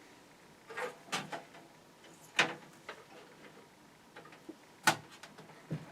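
Scattered clicks and taps of hands working cables and connectors inside a PC case, with about half a dozen short knocks. The sharpest comes about two and a half seconds in, and another about five seconds in.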